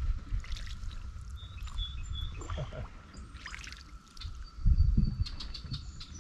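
Water dripping and trickling beside a canoe, with scattered small clicks over a steady low rumble that grows louder about four and a half seconds in.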